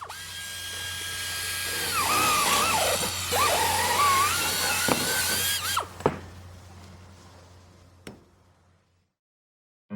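Power tool motor whining at a steady pitch, then its pitch dipping and wavering as it is put under load for a few seconds, before it is switched off and winds down. A single click comes about eight seconds in.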